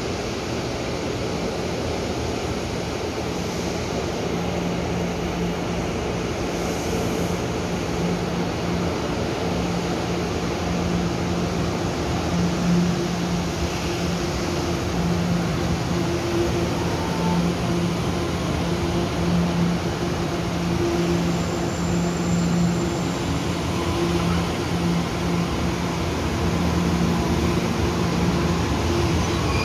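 TEMU2000 Puyuma tilting electric multiple unit running along an underground station platform: a steady rumble of wheels on rail with a low motor hum that sets in a few seconds in, growing slowly louder as the cars go by.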